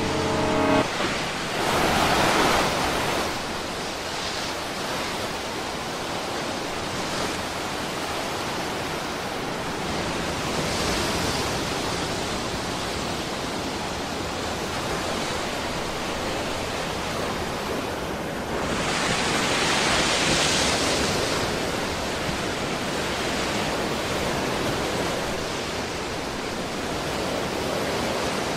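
Sea surf: waves rushing up the shore and washing back in a steady hiss, swelling louder about two seconds in, again around eleven seconds, and most strongly around twenty seconds. The last held note of the music dies away in the first second.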